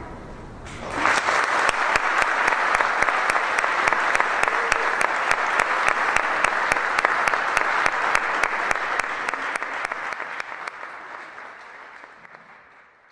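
Audience applauding, starting about a second in and holding steady before fading out near the end.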